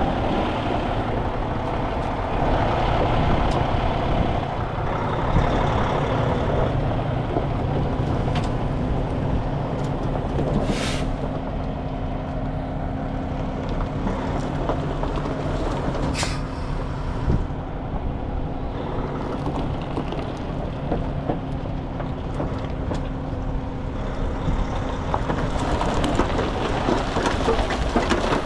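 Heavy truck's diesel engine running steadily, with two short air hisses, one about a third of the way in and another just past halfway.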